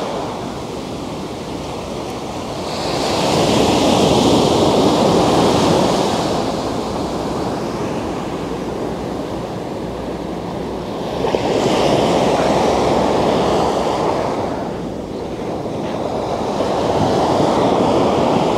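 Sea surf washing in on the shore, a steady rush that swells and fades in three slow surges.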